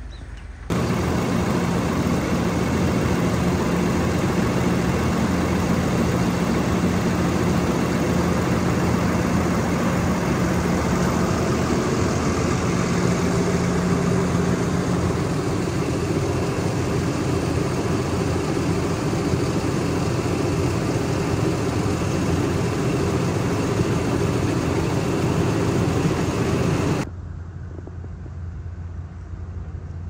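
A motor or engine running steadily with a constant low hum, loud and even throughout; it cuts in about a second in and stops abruptly near the end.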